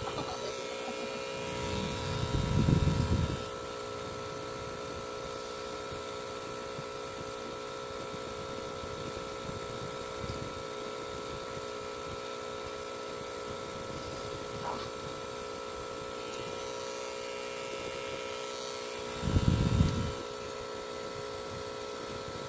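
Tattoo machine running with a steady, even hum while lining a tattoo. Two brief low rumbles come a couple of seconds in and near the end.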